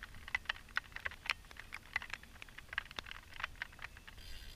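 Rapid, irregular light clicking and ticking, several clicks a second, over a low steady rumble.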